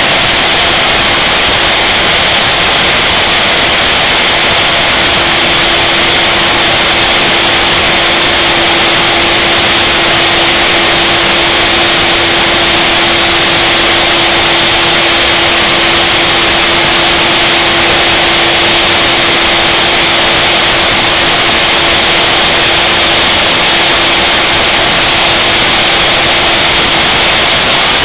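Handheld-style router spindle on a CNC router table running steadily at high speed under program control, a loud rush with a thin high whine, as it cuts a slot in a 1-inch pine board. A lower steady hum joins about five seconds in and fades near the end.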